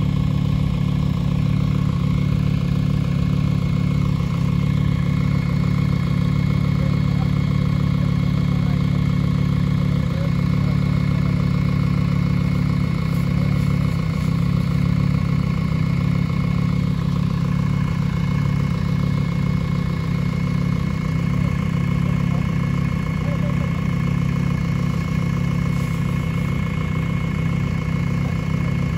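Flatbed tow truck's engine idling steadily.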